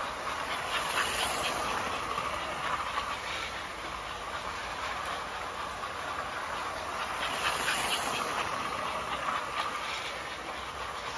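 American Flyer 343 0-8-0 diecast switcher running laps of an S-gauge track loop, its motor and wheels clattering steadily on the rails. It grows louder twice, about six and a half seconds apart, as it passes closest on each lap.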